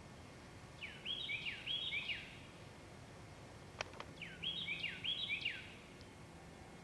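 A songbird singing two short phrases a couple of seconds apart. Each phrase is a quick run of about three repeated pairs of down-slurred whistled notes. A single sharp click falls between the two phrases.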